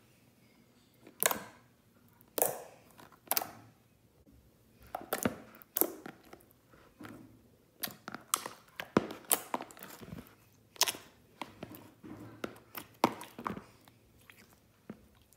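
Hands poking, squeezing and lifting clear, soapy water slime activated with baking soda and salt. It makes irregular wet clicks and squelches, with a few sharper pops and short quiet gaps between them.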